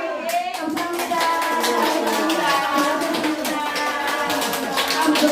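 A group of voices shouting and cheering together in long, overlapping calls, with scattered hand claps.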